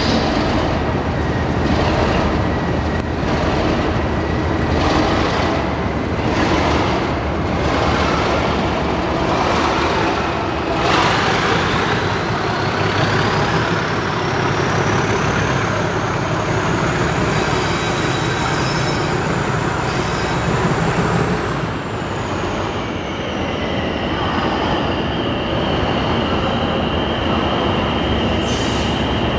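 Two English Electric Class 37 diesel locomotives, each with a V12 engine, working hard as they pull away and pass with a train of coaches. A high whistle rises through the middle, peaks, and falls away, and a steady high whine follows as the rear locomotive comes by.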